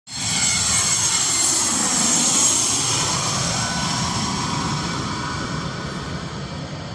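An airliner's engines pass close by with a loud, high whine. The sound is loudest about two seconds in and then slowly fades as the plane moves away.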